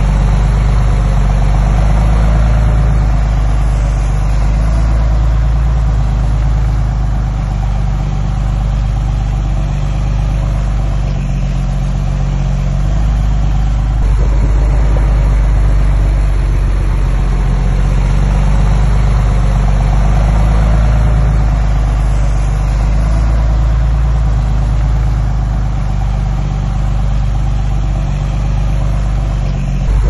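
Heavy diesel engine of a bulldozer or dump truck running steadily at a fairly even speed.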